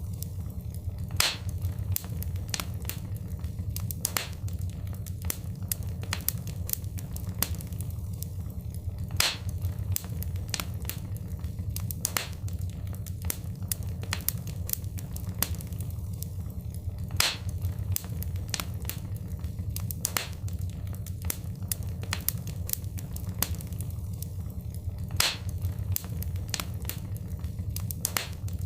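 Wood fire in a fireplace crackling and popping over a steady low rumble, with a sharper, louder pop now and then. The same few seconds of crackle repeat about every eight seconds, as a looped recording does.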